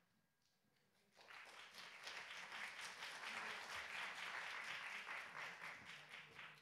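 Audience applauding: many hands clapping together, starting about a second in, holding steady, then dying away near the end.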